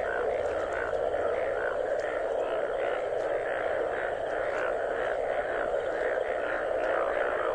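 Mating chorus of many Indian bullfrogs calling at once: a continuous din with short calls repeating several times a second on top.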